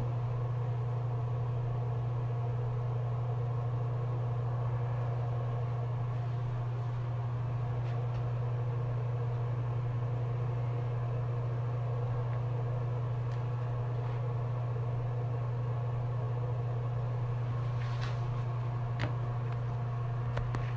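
A steady low hum with faint hiss above it, and two faint clicks near the end.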